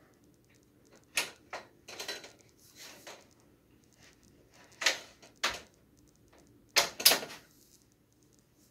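Manfrotto expansion pole and its clamp being handled and adjusted: an uneven string of sharp clicks and knocks of metal and plastic parts, the loudest about five and seven seconds in.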